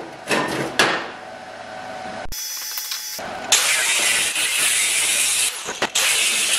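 Angle grinder with a thin cut-off disc running, then cutting through the edge of expanded steel mesh from about three and a half seconds in with a loud, harsh grinding hiss. The grinding breaks off briefly near the end. A couple of knocks come in the first second.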